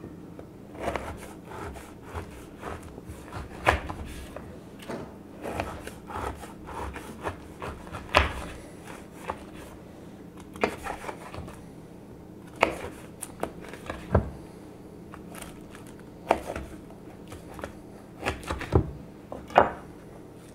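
Chef's knife cutting a thick slab of chocolate granola bars into strips on a wooden cutting board: irregular knocks, about one every second or so, as the blade presses down through the bar and meets the board.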